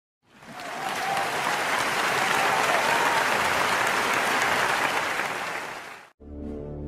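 Crowd applauding: it fades in at the start, holds steady and cuts off abruptly about six seconds in, where music begins.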